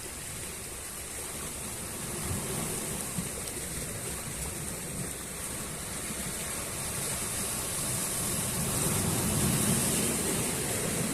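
Sea waves washing onto the shore in a steady rush of surf that swells louder toward the end.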